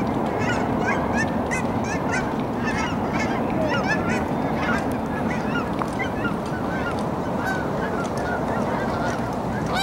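A large flock of birds calling without pause, with many short, overlapping rising-and-falling calls.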